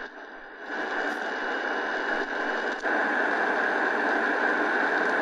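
Medium-wave static hissing from the Prunus J-15 portable radio's speaker as the AM dial is tuned between stations, with no station coming through. The hiss gets louder about a second in.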